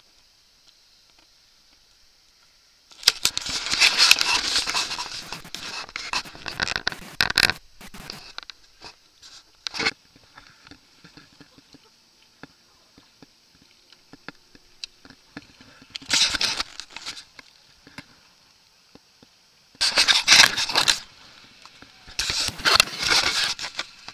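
Rough scraping and crackling noise in bursts: a long stretch beginning about three seconds in, then shorter bursts past the middle and toward the end, with quiet gaps between.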